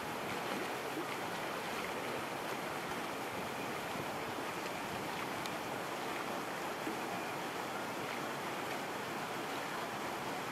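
Steady outdoor ambience: an even wash of noise with no distinct sound standing out.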